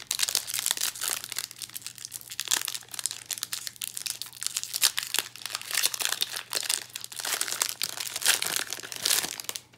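Foil wrapper of a Magic: The Gathering Jumpstart booster pack crinkling and tearing as it is pulled open by hand: a dense run of crackles that stops abruptly near the end.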